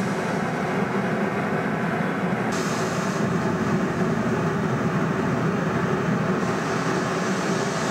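A loud, steady rumbling noise with a hiss on top. The hiss grows brighter about two and a half seconds in and dulls again near the end.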